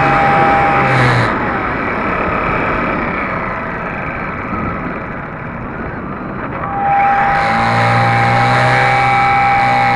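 HobbyZone Super Cub RC airplane's electric motor and propeller whining, with wind rushing over the wing-mounted camera. The motor whine drops off about a second in, leaving mostly wind noise while the plane glides, then comes back up a few seconds later as the throttle is opened again.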